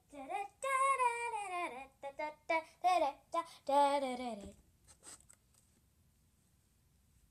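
A young girl singing in short phrases with sliding pitch, stopping about four and a half seconds in, followed by near silence.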